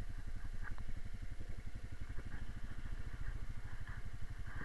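Honda Rubicon 520 ATV's single-cylinder four-stroke engine running steadily at low revs with an even, pulsing beat.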